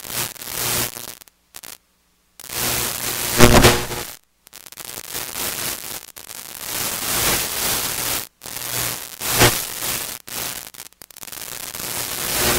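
Chalk scratching on a blackboard as words are written, in runs of strokes broken by short pauses.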